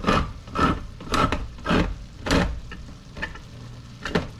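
Hand-held crank can opener cutting around the lid of a large tin can, a grinding rasp with each turn of the key about every half second, easing to lighter clicks over the last two seconds.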